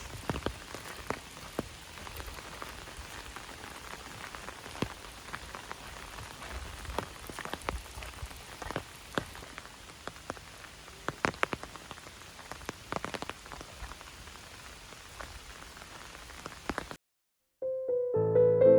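Steady rain falling, with heavy drops striking a surface in irregular sharp taps. It cuts off suddenly near the end, and piano music begins.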